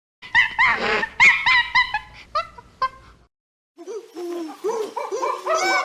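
A run of short, high-pitched animal calls, about three or four a second, which breaks off around three seconds in. After a short pause, a different, lower-pitched chorus of overlapping calls begins.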